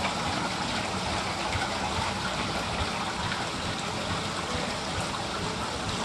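Steady rush and splash of water in the rocky stream beneath a large wooden mill water wheel.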